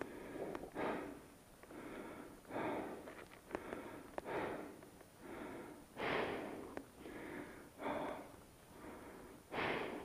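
A person breathing close to the microphone inside a motorcycle helmet, soft puffs of breath about once a second, with a few faint clicks.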